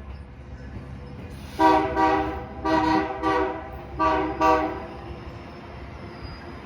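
Train horn sounding a series of blasts over about three seconds, beginning about a second and a half in, over a steady low rumble of train noise.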